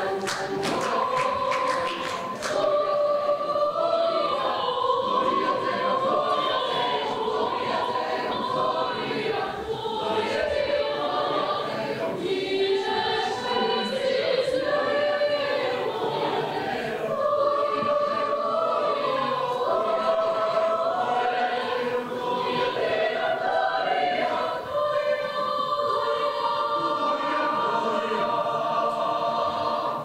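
Mixed choir singing a holiday piece in parts, with long held chords that move from note to note.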